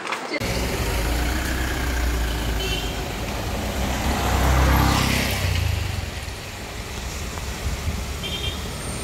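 Road vehicle engine and road noise with a steady low rumble that starts abruptly. The noise swells to its loudest about halfway through, and two short high-pitched chirps sound, one early and one near the end.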